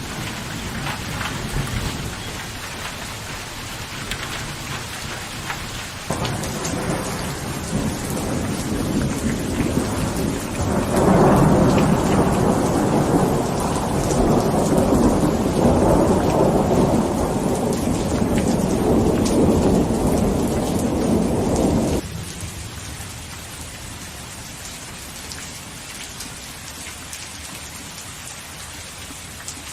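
Steady rain with a long, loud roll of thunder starting about a third of the way in; the thunder cuts off suddenly about two-thirds of the way through, leaving quieter, even rainfall.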